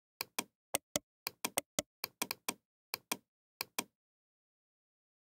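Computer mouse button clicking: about fifteen sharp clicks, many in quick pairs, over the first four seconds.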